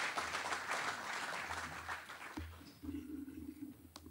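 Audience applauding, dying away about two and a half seconds in. A low rumble of handling noise follows, with a sharp click near the end.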